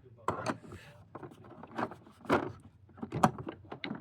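Metal hand tools, a large adjustable wrench among them, knocking and clinking as they are laid and shifted in a toolbox drawer: a string of separate knocks, the sharpest about three seconds in.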